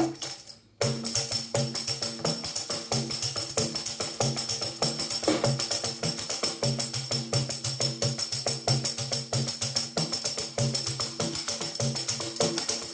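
Tambourine with its jingles partly damped by paper tape, played in a fast, steady pandeiro-style rhythm of head strikes and jingle shakes, starting about a second in. The tape dulls the jingles so the tambourine sounds closer to a Brazilian pandeiro.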